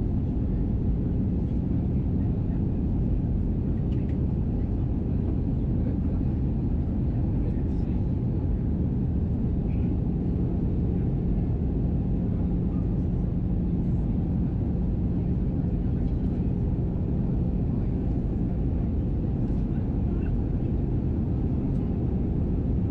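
Steady cabin noise inside an Airbus A320 on approach: an even rumble of engines and airflow with a steady low hum underneath.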